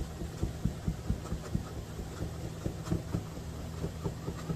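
Kitchen knife chopping shredded cooked chicken breast on a plastic cutting board, soft quick knocks about three to four a second, over a steady low hum.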